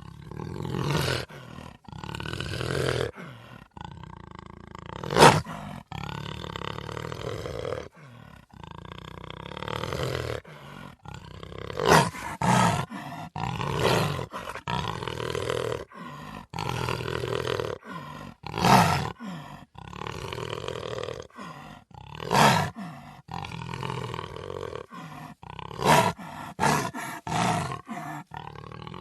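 Big cat roaring and snarling over and over, a string of harsh calls with short gaps between them, the loudest about five seconds in.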